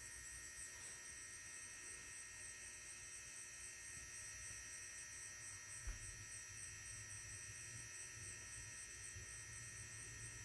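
Quiet room tone: a faint, steady electrical hum and high-pitched buzz, with a single soft click about six seconds in.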